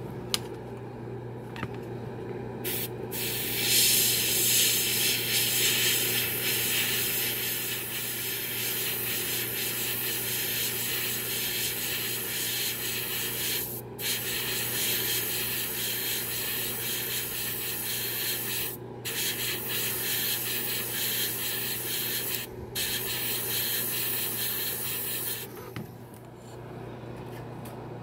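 Hiss of Tamiya TS-14 lacquer being sprayed in long passes, with a few brief breaks, loudest a few seconds in, and stopping near the end. A steady low hum runs underneath.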